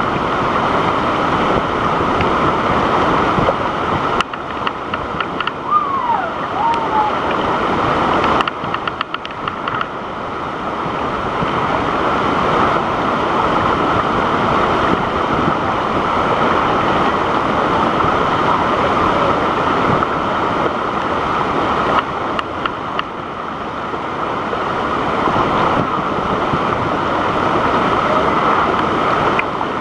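Waterfall: a steady, loud rush of falling water, with a few light clicks about four and nine seconds in.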